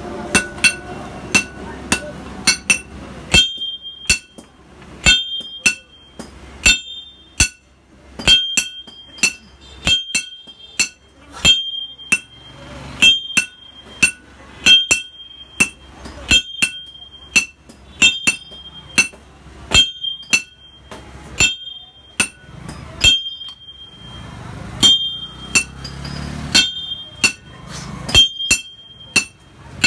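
Hand hammer striking a red-hot steel cleaver blade, cut from a tractor's disc plough, on an anvil while forging it to shape. The blows ring sharply and come steadily, a couple every second and often in quick pairs.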